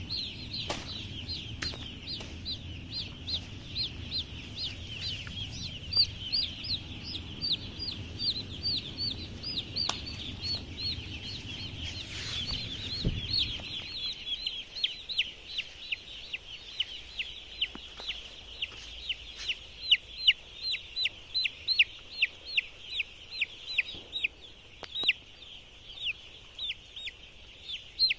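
A flock of young chicks peeping: many short, high-pitched peeps that slide downward, several a second without pause. A low rumble sits underneath and stops about halfway through.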